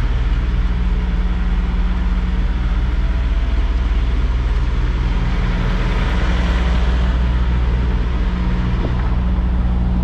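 Semi-truck diesel engine running at low revs, a steady low drone, as the tractor-trailer is manoeuvred slowly at backing speed.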